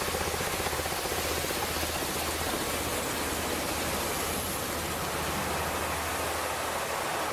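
Snow-clearing machine running: a steady rushing noise over a low, even engine hum.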